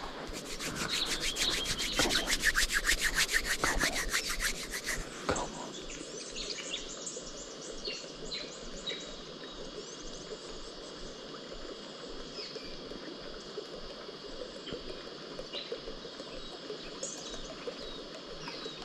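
Fishing reel being wound in, a fast even ticking that runs for about five seconds and then stops. After it, insects and birds chirp steadily.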